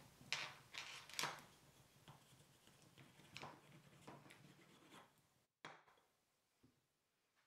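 Wooden edge burnisher rubbed along the edge of a vegetable-tanned leather strap: about ten faint, short rubbing strokes, the first few loudest. About five and a half seconds in they stop, and a sharp click and a light knock follow as the tool is set down on the table.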